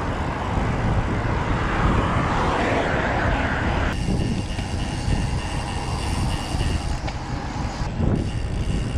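Wind rushing over a bicycle-mounted action camera's microphone while riding a road bike at speed, a steady rumble and hiss mixed with road and traffic noise. The sound changes abruptly about four and eight seconds in, where the footage jumps between clips.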